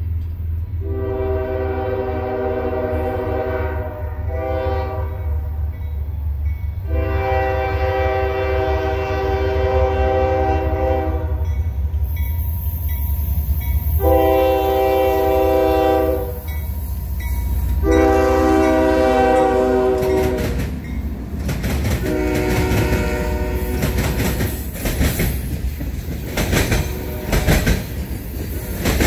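A diesel locomotive's multi-chime air horn sounds a series of long and short blasts as the train approaches, over the low rumble of the engine. Near the end the horn stops and the wheels clatter over the rail joints as freight cars pass.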